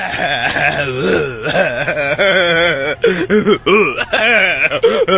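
A person's voice vocalizing without clear words in a wavering, sing-song, laughter-like way, pitch swooping up and down throughout.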